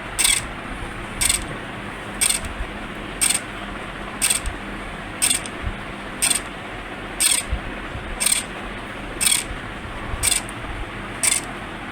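A hobby servo motor's gears whirring in short bursts, about one a second, as it swings a lever to squeeze an Ambu bag at the ventilator's normal one-press-per-second rate.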